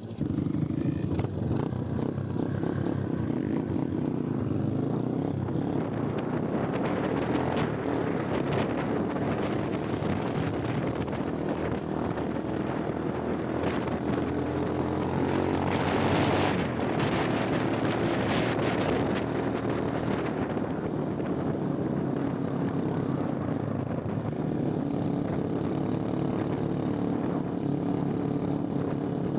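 Motorcycle engine running steadily while riding, with wind rushing over the microphone. About halfway through, a louder rush of noise swells and fades.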